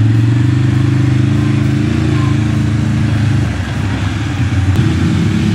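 Can-Am 650 ATV's V-twin engine pulling steadily under load on a short hill climb. It eases off briefly about three and a half seconds in, then picks up again.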